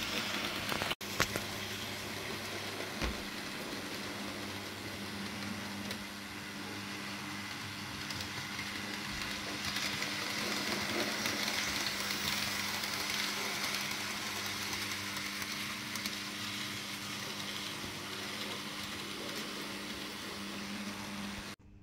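N gauge model locomotive running on the track: the steady whirr of its small electric motor and the wheels rolling on the rails. The sound grows a little louder for several seconds around the middle.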